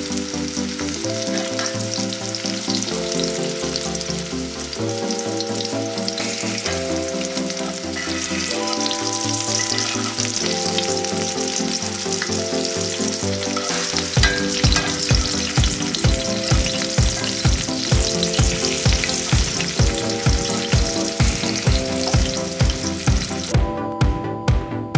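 Breaded flounder fillets frying in butter and oil in a skillet: a steady sizzle. Background music plays under it, and a regular beat comes in about halfway through. The sizzle stops near the end.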